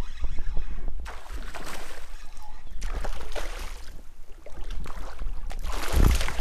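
Water splashing and sloshing as a hooked fish thrashes at the surface beside a kayak, in a few rushing bursts, the loudest near the end. Wind buffets the microphone underneath.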